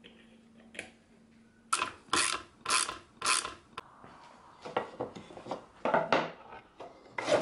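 A socket ratchet clicking through four quick strokes as bolts are driven into a plywood plate, followed by lighter knocks and scrapes of wooden strips being set down and slid on plywood.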